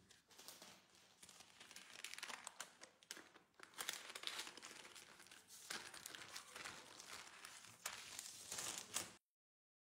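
Baking paper and thin disposable plastic gloves crinkling and rustling unevenly as hands fold and press a sheet of dough. The sound cuts off abruptly about nine seconds in.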